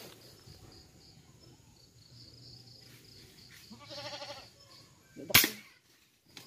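A single sharp shot from an FX Impact PCP air rifle about five seconds in, the loudest thing here. Just before it, an animal gives one short, wavering bleat-like call.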